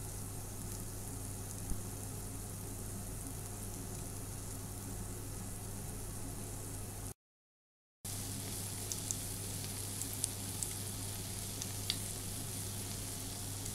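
Apple fritters frying in vegetable oil in a pan on moderate heat: a steady sizzling hiss over a low hum. It cuts out for under a second about seven seconds in, then returns with scattered small pops and crackles.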